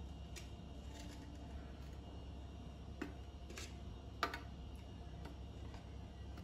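Faint, scattered light taps and clicks as stuffed spiny gourd (kantola) halves are set down one by one in a stainless steel container, the sharpest a little over four seconds in, over a low steady room hum.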